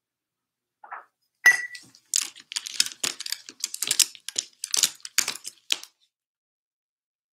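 A sheet of printed photo paper being handled, giving a run of crisp rustles and crackles for about five seconds, led by one sharp click with a brief ring about a second and a half in.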